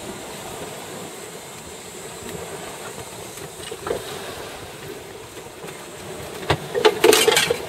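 Steady rushing noise of water and wind aboard a sailing yacht under way. Near the end there is a short burst of clattering knocks.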